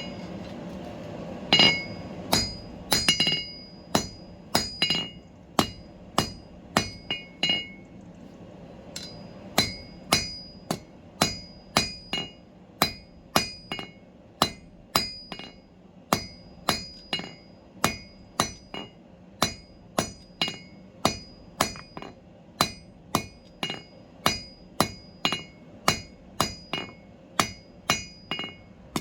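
Hand hammer striking steel on an anvil in a steady forging rhythm, about two blows a second, each blow ringing, with a brief pause about eight seconds in.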